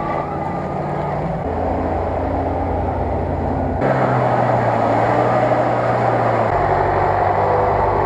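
Off-road 4x4 engines running under load as the vehicles wade through deep water, with water washing and splashing around them. The engine note and the splashing change abruptly several times as one vehicle's sound gives way to another's.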